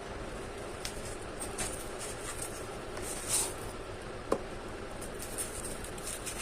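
Handling sounds from unboxing a hair serum: scattered light clicks and a brief rustle, with one sharp click about four seconds in, over a steady background hum.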